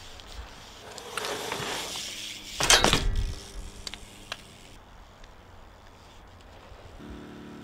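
BMX bike tyres rolling on concrete with a rising rush, then a loud clattering impact of the bike hitting the concrete about three seconds in, followed by a brief ringing and a few small knocks.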